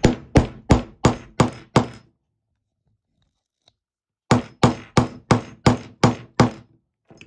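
A claw hammer striking a metal hole-punch tool, driving it through a hardcover book's cover and pages to cut a grommet hole. A run of six sharp blows, about three a second, a pause of a couple of seconds, then seven more at the same pace.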